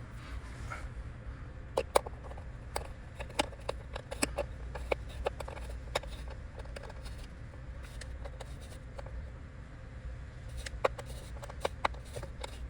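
Irregular small clicks and taps of a hand screwdriver and small screws being worked into a metal mounting bracket, over a steady low hum.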